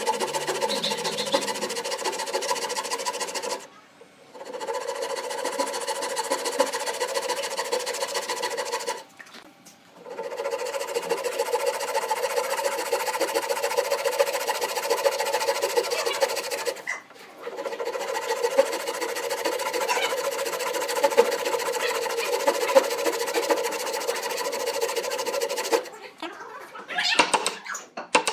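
Hand saw cutting through a wooden rail with fast, even back-and-forth strokes, stopping briefly three times. Near the end the sawing gives way to a few irregular scrapes and knocks.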